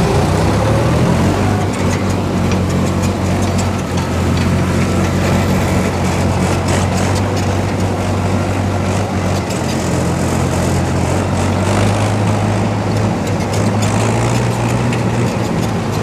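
Steady drone of a tractor engine running close by, alongside a Bakhsish 930 combine harvester at work cutting wheat. The engine note rises slightly about twelve seconds in.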